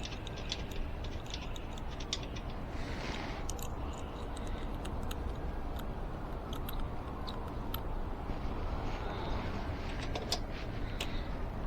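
Irregular light metallic clicks and rattles of a hand tool working the rear axle nuts of an e-bike hub-motor wheel, over a steady low hum.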